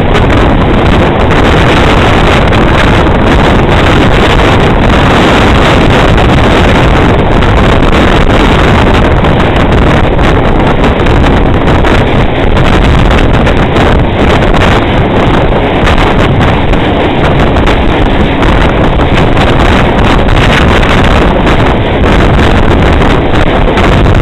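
Tour speedboat running fast on the river: a loud, steady rush of engine, water and wind buffeting the microphone.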